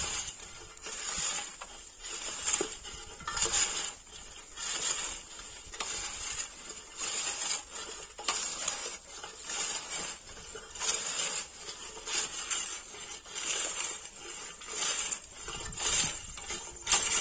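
Hand-pushed wheel weeder's blade scraping and crunching through dry, loose rotavator-tilled soil and straw, in a steady rhythm of about one push stroke a second.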